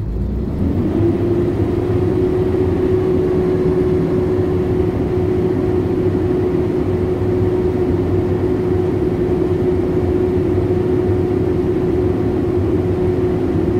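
Cummins ISB 6.7L diesel engine revved up from idle about a second in, then held steady at high idle with no load, heard from inside the truck's cab with a steady whine over the engine's running.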